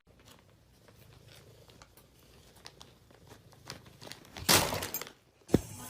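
Faint scattered rustling and crinkling, with a louder burst of rustling about four and a half seconds in.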